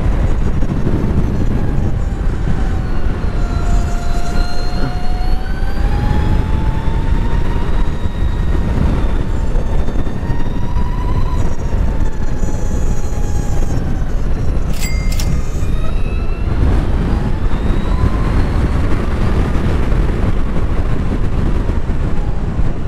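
LiveWire electric motorcycle riding at speed: the electric drive's whine slowly rises and falls in pitch as the bike speeds up and slows down, under heavy wind rumble on the microphone.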